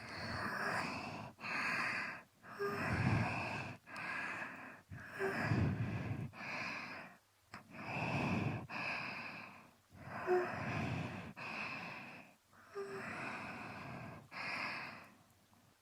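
Close-up mouth and breath sounds of an ASMR ear-licking performance at a binaural microphone, in about a dozen strokes roughly a second long with short pauses between them.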